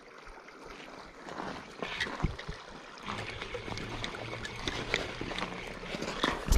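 River water flowing, with irregular light clicks and rustling from hands working the reel during a fight with a hooked steelhead.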